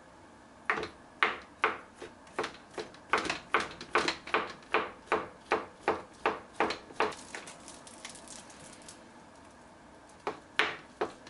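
Kitchen knife chopping sliced ham on a plastic cutting board: a steady run of knocks of the blade on the board, about three a second, which stops about two-thirds of the way in. A few more knocks come near the end.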